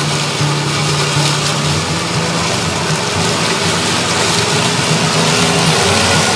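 Toro ZS4200T zero-turn riding mower's engine running at a steady pitch under load as its blades cut through waist-high meadow grass.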